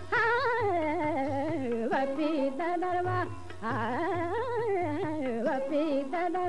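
A woman singing long, wavering melismatic phrases without clear words in a light-classical film-song style, over instrumental accompaniment with low pulsing beats.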